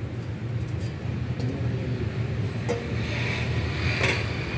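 Car engine idling with a steady low rumble, with a few light metal clicks and scrapes as a chrome exhaust tip is worked on the tailpipe and pulled off.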